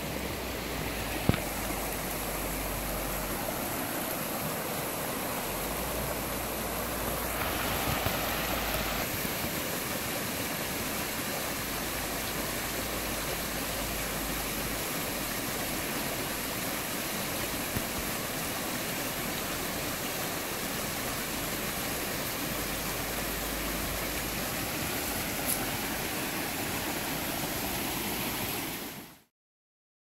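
Stream water rushing and splashing steadily over stones and a small rocky cascade. There is one sharp click about a second in, and the water fades out near the end.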